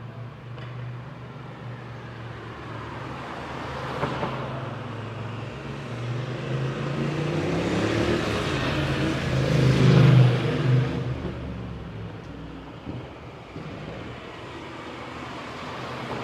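Road traffic: a motor vehicle approaches and passes close by, its engine tone sliding down in pitch as it goes past, loudest about ten seconds in, then fading. A lighter vehicle pass is heard about four seconds in, over a steady traffic hum.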